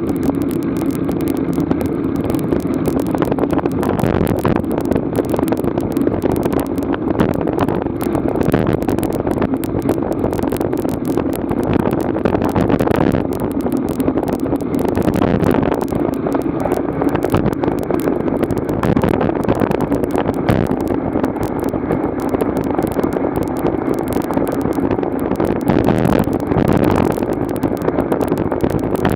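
Steady wind and road noise of a vehicle riding along a road at about 20 to 30 km/h, picked up by a mounted action camera.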